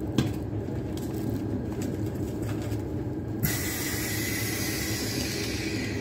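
Steady low machine hum. A sharp click comes just after the start, and a second click about halfway sets off a steady hiss that stops near the end.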